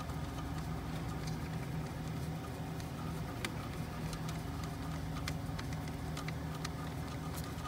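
Faint scattered clicks and scrapes of a screwdriver working a hose clamp on a fuel hose, over a steady low background hum.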